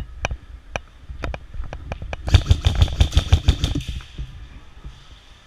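Airsoft guns firing: scattered single shots a few tenths of a second apart, then a full-auto burst of about nine shots a second lasting about a second and a half, starting a little over two seconds in.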